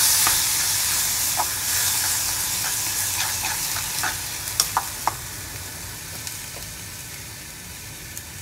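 Curd rice sizzling in a metal kadhai over a low gas flame while a metal spoon stirs it, clicking and scraping against the pan. The sizzle fades, and the spoon clicks stop about five seconds in.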